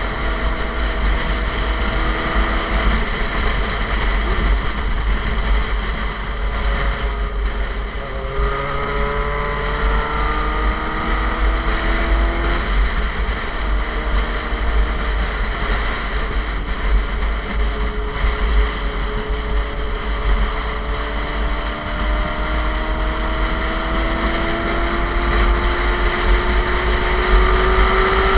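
Suzuki GSX-R sport bike with an SC Project aftermarket exhaust running under way, with heavy wind buffeting on the microphone. The engine note climbs slowly, drops with a gear change about eight seconds in, then climbs again.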